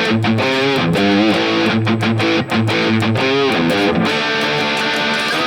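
High-gain electric guitar played through the NUX MG-30's 5150 amp model with an SM57-miked cabinet: fast palm-muted chugs with two bent notes, then a held chord from about four seconds in.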